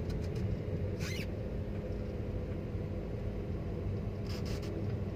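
Steady low engine and tyre hum of a car rolling slowly, heard from inside the cabin, with a couple of brief high squeaks, one about a second in and another after four seconds.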